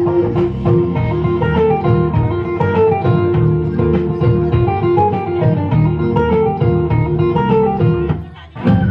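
Instrumental background music led by plucked strings over a steady rhythm. It dips briefly near the end.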